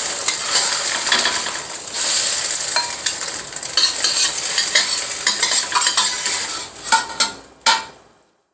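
Scrambled eggs sizzling in hot oil in a metal wok while a spatula stirs and scrapes them, with frequent sharp clicks of the spatula against the pan. The sizzle fades toward the end as the eggs are lifted out, leaving a couple of separate knocks and then silence.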